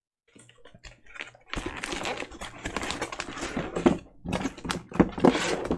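Plastic film wrapping on a card backing crinkling and rustling as it is handled, with many sharp crackling clicks. It starts faintly and grows loud about a second and a half in.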